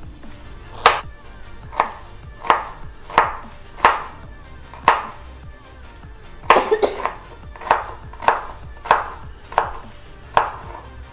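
Kitchen knife chopping ginger on a wooden cutting board: single strokes every half second to a second, with a quick run of several strokes about six and a half seconds in.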